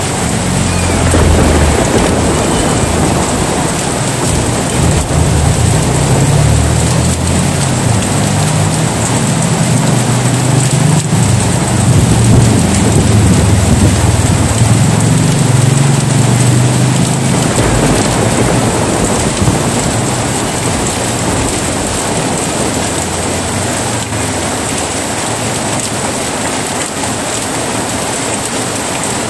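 Heavy rain falling steadily, with a long low roll of thunder rumbling through the first half and dying away about two-thirds of the way in.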